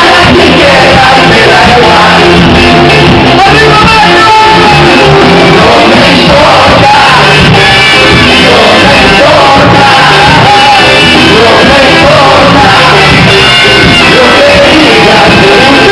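Live ska band playing loudly, a lead singer over saxophone and electric guitars.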